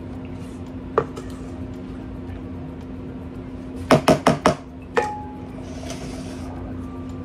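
A spatula being tapped against metal bakeware while batter is scraped out of a mixing bowl: one knock about a second in, four quick knocks around four seconds in, and one more a second later, over a steady low hum.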